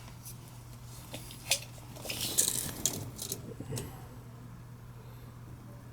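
Clicks and a short clatter of small hard parts being handled, busiest between about one and a half and four seconds in, as PVC condensate-drain fittings are worked on. A steady low hum runs underneath.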